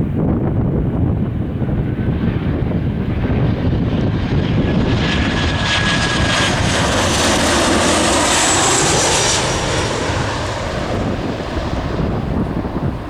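Ryanair Boeing 737-800 jet on landing approach, its CFM56 turbofans whining and hissing as it passes. The engine sound swells to a peak with a high whistle about two-thirds of the way through, then fades. Wind buffets the microphone with a steady low rumble throughout.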